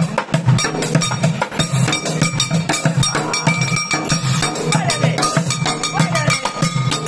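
Junk percussion played with drumsticks: fast, dense beats on upturned plastic buckets and a water jug, with strikes on aluminium cooking pots and small cymbals.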